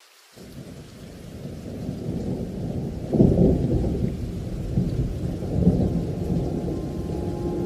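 Rumbling thunder, a thunderstorm sound effect, swelling in from silence, with louder rolls about three seconds in and again near six seconds.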